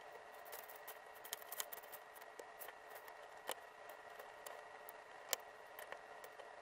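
Plastic LEGO bricks clicking and clattering as pieces are picked from a loose pile and pressed together: scattered small clicks, a quick run of them just over a second in and a sharper snap about five seconds in.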